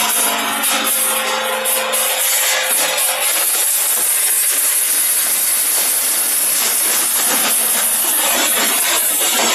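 Double-layer quartz color sorter running: a steady, dense rattling hiss of quartz stone streaming through its feed trays and chutes.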